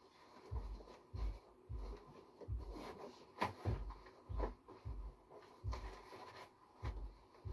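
Repeated dull thumps, about one to two a second, of hands pressing folded towels and cloth down into a cardboard box to pack it tight, with faint rustling and the odd sharp tap.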